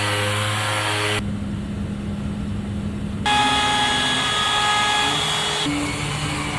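Pneumatic air sander running on a wooden slab, in several short spliced clips; its steady whine and hiss change abruptly at each cut.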